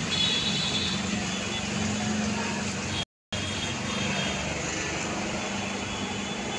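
Steady outdoor background noise with a faint low hum; the sound cuts out completely for a moment about three seconds in.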